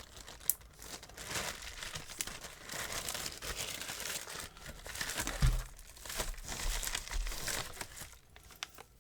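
Packaging crinkling and rustling in the hands as a lock is unwrapped, with small clicks and a soft thump about five and a half seconds in.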